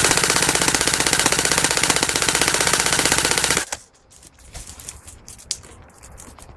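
Airsoft gun firing on full auto close by: a rapid, even stream of shots for about three and a half seconds that stops suddenly, followed by faint scattered clicks.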